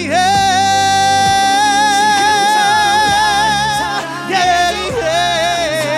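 Male pop vocalist singing live, holding one long high note for about four seconds with vibrato widening toward its end, then moving to a second sustained note, over live band accompaniment.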